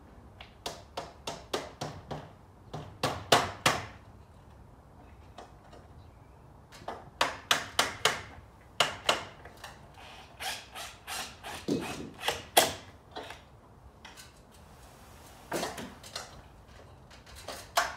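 Hammer blows in quick runs of sharp knocks, about two to three a second, with short pauses between the runs; the loudest strikes come about three seconds in and again near the middle.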